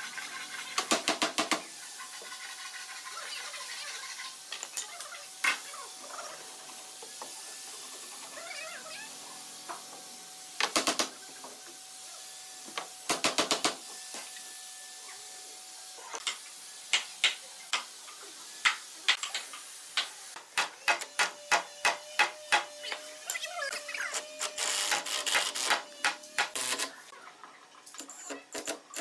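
Hammer striking a wooden block against a wooden cabinet frame in quick bursts of several knocks, driving the partitions and joints tight. The bursts come sparsely at first, then more often through the second half.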